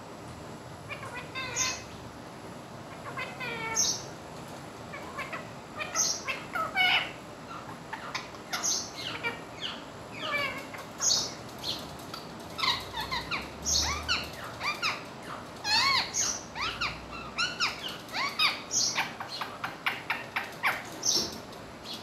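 Indian ringneck parakeet making short, sharp chirping calls with quick pitch sweeps, in clusters every second or two and coming faster in the second half.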